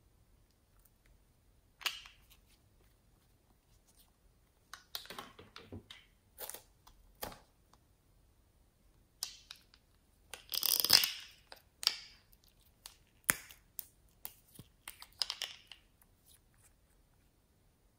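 Small cosmetic bottles and tubes handled close to the microphone: a scattered series of clicks, taps and short scraping rustles, the loudest a longer scrape about eleven seconds in.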